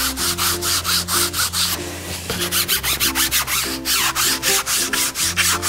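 A printmaking baren rubbed hard in quick scratchy strokes, about four or five a second, over the back of paper laid on an inked woodblock plate: the paper is being pressed onto the plate to pull a hand-printed relief print.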